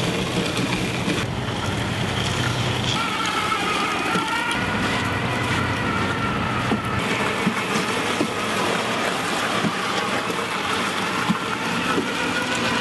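Tracked ROV driving over beach gravel: its drive motors whine, the pitch gliding up and down as it changes speed, over scattered crunching clicks from the tracks on the stones.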